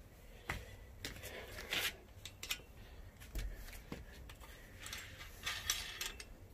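Quiet handling noises from a steel hammock stand's hardware and the hammock's cotton ropes: scattered light clicks, taps and rustles as a metal hook and wing-nut bolt are worked by hand.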